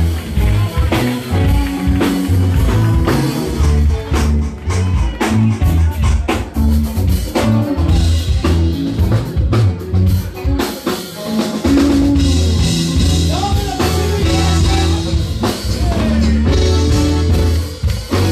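Live band playing: a prominent bass guitar line and drums, with some singing over the top.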